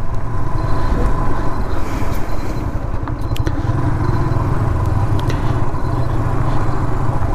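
Motorcycle engine running steadily as the bike is ridden off-road over a rough, stony track, with a few sharp ticks on top.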